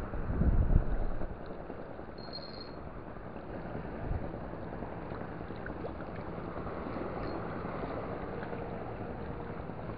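Wind rumbling on the microphone for about the first second, then a steady wash of wind over choppy water.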